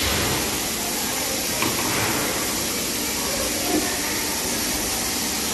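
Steady, loud hiss of factory machinery around a hydraulic moulding press for GRP water tank panels, with a couple of light knocks.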